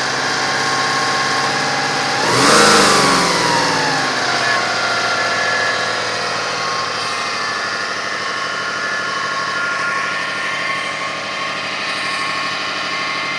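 2005 Kia Sedona 3.5L V6 engine idling with a noise that appeared after its timing belt and water pump were replaced. About two seconds in, the throttle is blipped and the revs rise and fall back to idle within a couple of seconds. The noise goes away with the revs up and comes right back at idle.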